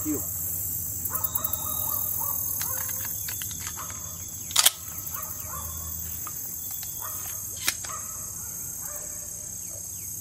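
A steady high insect drone with faint, short bird calls in small series. One sharp crack comes about four and a half seconds in, and a fainter click near the end.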